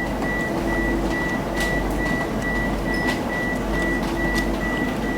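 Electronic warning beeper sounding a high, even beep about twice a second over a steady hum of ventilation inside a Eurotunnel shuttle carriage. It is the warning given as the carriage's doors are closed and the passengers are shut in.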